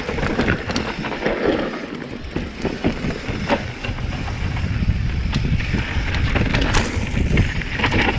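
Giant Trance mountain bike descending a rough downhill trail: the tyres rumble steadily over dirt and stones while the bike rattles with frequent sharp knocks.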